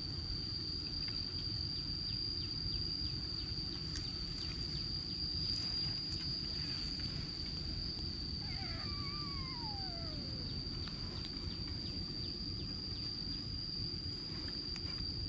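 Outdoor ambience: a steady high insect drone over a low rumble of wind on the microphone. About eight and a half seconds in comes a single falling call that slides down over about two seconds.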